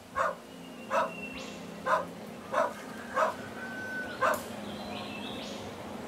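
A dog barks six times at uneven intervals over a faint steady hum.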